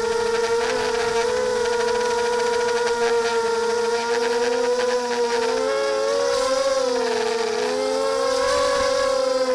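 FPV quadcopter's electric motors and propellers whining in flight: a steady pitched drone that, a little over halfway through, wavers up and down in pitch as the throttle changes.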